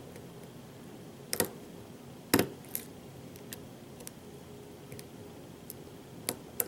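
A hook pick working the pins of a pin-tumbler lock held in a false set under tension, giving sharp irregular metallic clicks, about seven of them; two loud ones a little past a second in and near two and a half seconds.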